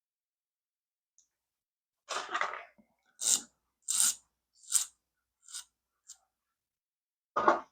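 Thin drinks-can aluminium shim for opening a padlock being worked: about eight short scratchy sounds from two seconds in, roughly half a second to a second apart, the last two the loudest.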